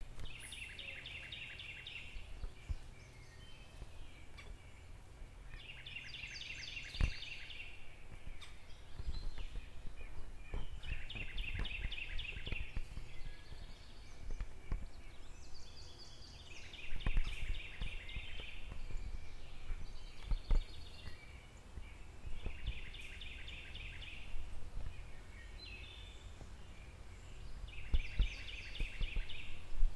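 A songbird sings the same short, rapid trill-like phrase six times, about every five to six seconds, over a steady low rumble with a few scattered light knocks.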